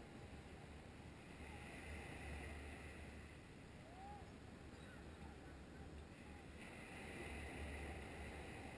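Faint wash of surf on the shore, with a low, uneven rumble of wind on the microphone.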